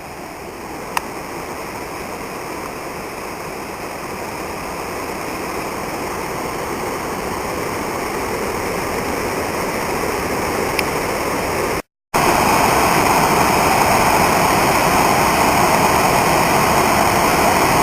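Waterfall running full with rain, a steady rushing of falling water that slowly grows louder, then breaks off at a cut to a louder, closer rush of water.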